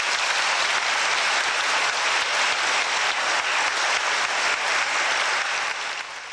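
Audience applauding at the close of a speech: dense, steady clapping that dies away near the end.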